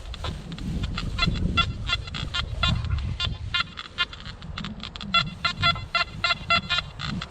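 Nokta Anfibio metal detector giving short, repeated pitched beeps as its coil is swung over metal targets, in quick runs and then a steadier string of about three beeps a second near the end. A low rumble of wind on the microphone runs underneath.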